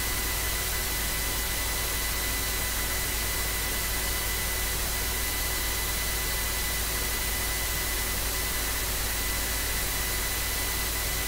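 Steady recording hiss with thin, steady electrical whine tones and a low hum underneath: background noise of the recording's microphone and electronics, with nothing else happening.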